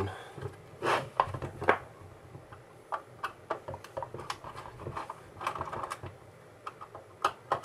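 Scattered light clicks and taps of a plastic variable-frequency drive housing being turned over and set down on a workbench, and a screwdriver being picked up.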